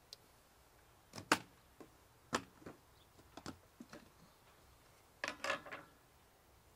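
Plastic clicks and knocks of an ATV's air box cover being unclipped and lifted off: a few sharp clicks about a second apart, then a quick rattling cluster near the end.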